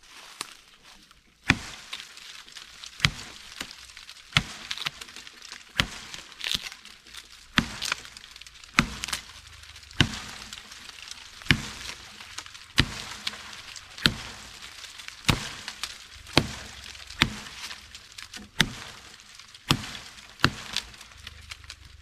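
A 12-inch Tramontina machete chopping into a dry fallen maple log, with sharp blows about once a second starting about a second and a half in.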